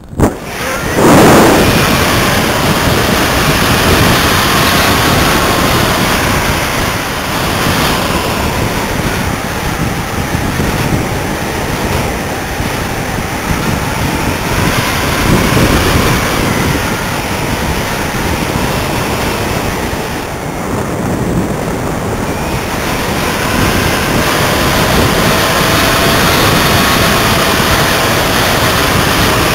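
Airflow rushing over the microphone of a camera mounted on a Doppelraab glider in flight: a loud, steady rush of wind noise with faint wavering whistles. It swells up sharply about a second in.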